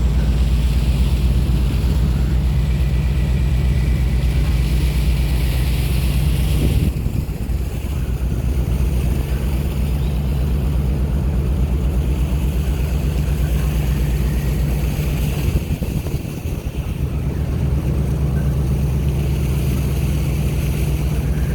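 A motor running steadily: a low drone with a fast even pulse over a rushing hiss of wind and water noise. The sound shifts abruptly about seven seconds in and dips briefly around sixteen seconds.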